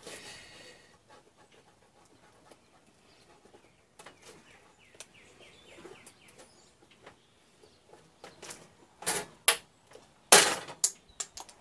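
A flathead screwdriver pries at an old toaster's plastic casing: light scraping and clicks, then several sharp cracks of the plastic breaking in the last few seconds. The loudest crack comes about a second before the end.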